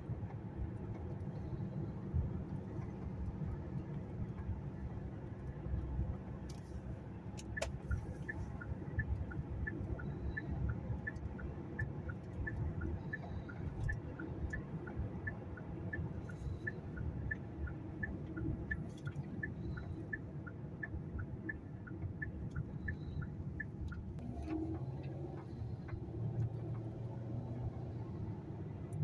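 Road and engine rumble inside a moving car's cabin. From about 8 to 24 seconds in, a light, even ticking of two alternating high tones, about two a second, runs over it, like a car's tick-tock dashboard signal.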